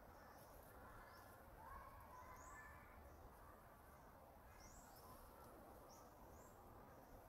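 Near silence: faint outdoor background noise with scattered short, high chirps.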